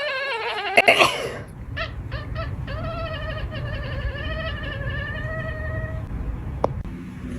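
Domestic cat giving long, drawn-out wavering yowls: one trailing off about a second in, with a few sharp clicks at that point, then a couple of short calls and a second long yowl that stops about six seconds in.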